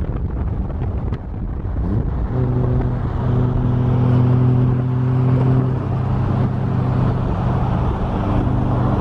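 Car engine running while driving: the note rises about two seconds in, then holds steady at cruising revs over road and wind rumble.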